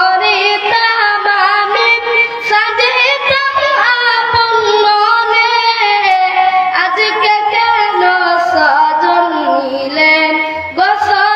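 A boy singing a Bengali Islamic gojol (devotional song) into a microphone in a high voice, drawing out long held notes with wavering ornaments.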